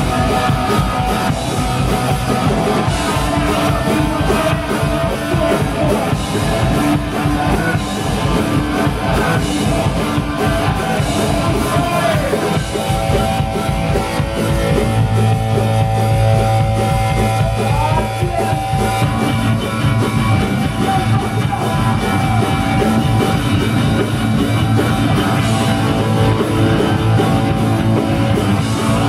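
Punk rock band playing live on stage: electric guitars, bass and a fast, driving drum kit, loud through the PA. The bass notes grow heavier about halfway through.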